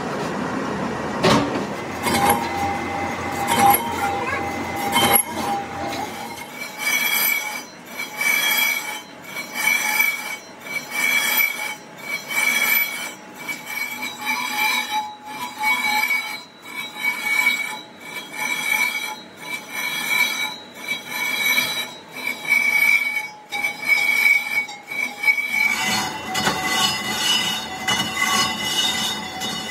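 Metal-cutting squeal from a truck brake drum being machined: a high ringing tone that pulses about once a second, giving way near the end to a steadier, denser metallic whine.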